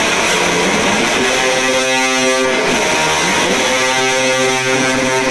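Electric guitar played through stacked fuzz pedals into a Fender Deluxe Reverb amp, heavily distorted. A chord is struck about a second in and rings on with long sustain.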